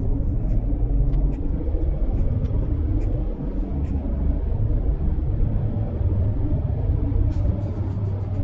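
Steady low rumble of a Mercedes-Benz GLC220d cruising on an expressway: road, tyre and engine noise, with a few faint light ticks.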